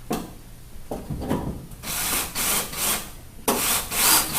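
A few clicks, then a drill driver running in short bursts, driving a Torx screw through a bracket into a pickup's truck bed: one spell of bursts about two seconds in, then a louder run near the end.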